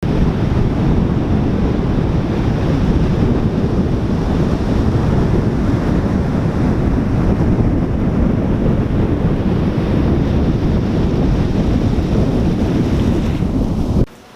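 Strong wind buffeting the microphone over the steady wash of ocean surf, a loud even rumble that cuts off abruptly near the end.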